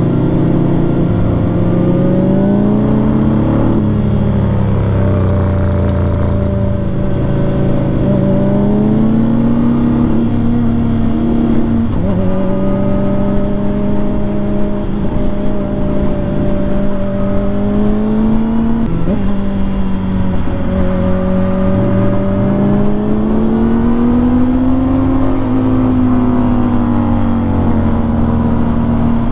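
Kawasaki Ninja ZX-4RR's 399 cc inline-four engine running under way. Its note climbs and falls gently with the throttle and drops sharply about twelve and nineteen seconds in.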